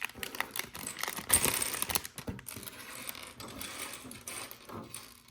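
Small plastic LEGO pieces clicking and rattling against one another as parts bags are opened and emptied, with a steady run of light clicks and a few louder clacks.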